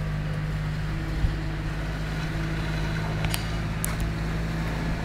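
A steady low mechanical hum runs throughout, with a few faint clicks a little past three seconds in.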